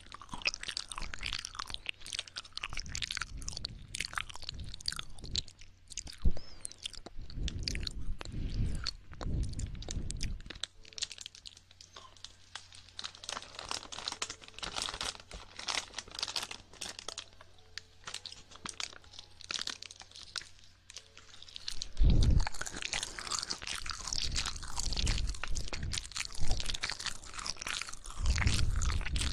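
Close-up wet mouth sounds of ASMR ear licking: rapid wet clicks and smacks, with a few heavier muffled swells, and a quieter, sparser stretch in the middle.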